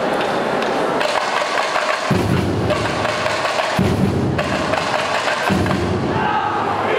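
Samba bateria playing: chocalho shakers and snare drums keep up a dense rattle, and large surdo bass drums come in heavily about two seconds in.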